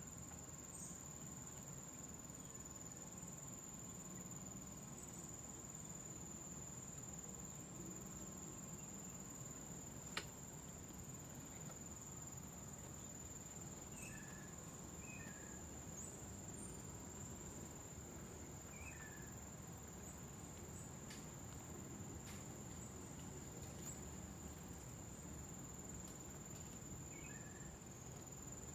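Insects trilling in one steady, unbroken high-pitched tone. A few faint short chirps come in the second half, and there is a single sharp click about ten seconds in.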